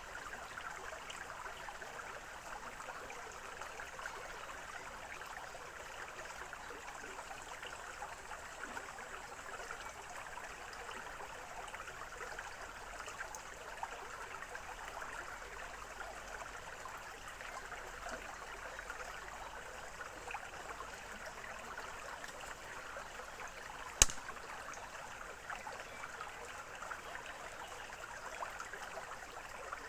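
A small forest stream babbling and trickling steadily over its bed. A single sharp click stands out about three-quarters of the way through.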